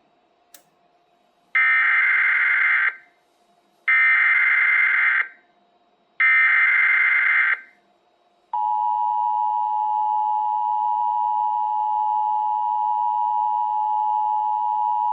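Emergency Alert System SAME header: three screechy bursts of digital data tones, each a little over a second long and about a second apart. About halfway through, the steady two-tone EAS attention signal starts, announcing a special marine warning.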